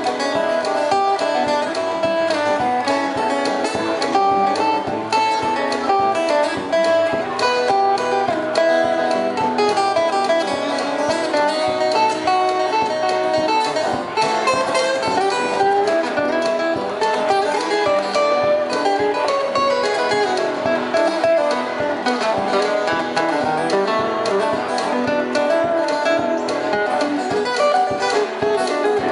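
Two acoustic guitars playing a country tune together, strummed and picked in a steady rhythm without a break.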